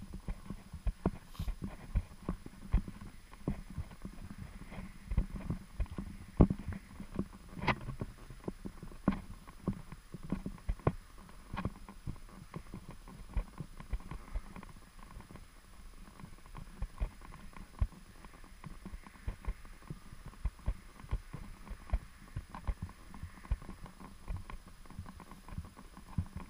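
Footsteps of a person walking on a thin layer of snow over pavement, a steady run of soft steps at about two a second.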